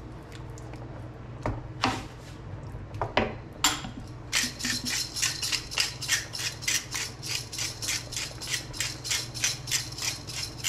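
Hand-twisted pepper mill grinding pepper over a pan, a steady run of crisp clicks at about four a second, starting about four seconds in. A few separate knocks come before it.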